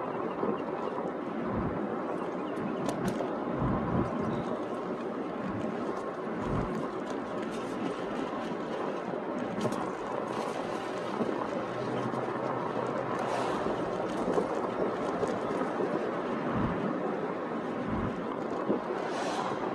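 Steady road and engine noise inside the cabin of a car driving at moderate speed, with a few brief low thumps.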